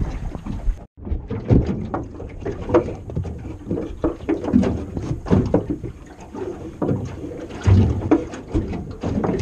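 Irregular knocks, taps and clunks on the aluminium hull of a small dinghy, picked up close by a camera resting on the boat floor.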